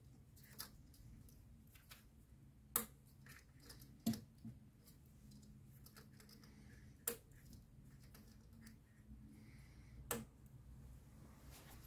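A few separate sharp plastic clicks of electrical connectors being pushed onto Landi Renzo LPG injectors, over a faint steady low hum.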